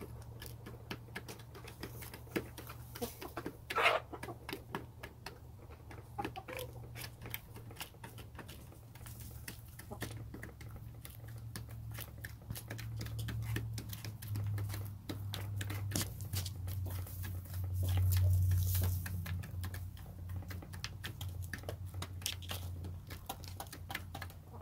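Hens pecking crumbles from a plastic feeder tray: a quick, irregular patter of beak taps and clicks. Under it runs a low hum that grows louder past the middle.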